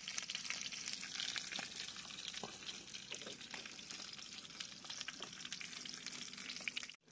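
Dried fish (tuyo) frying in hot oil in a nonstick pan on a portable butane stove: a steady sizzle with many small crackling pops. It cuts off abruptly just before the end.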